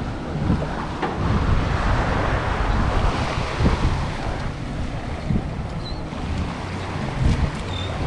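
Sea waves washing up the beach in slow swells, with wind buffeting the microphone. Two brief high chirps sound near the end.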